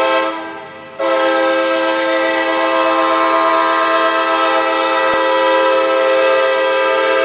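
Kansas City Southern freight locomotive's air horn sounding: a short blast that dies away at once, then a long, loud, steady blast starting about a second in, several tones sounding together.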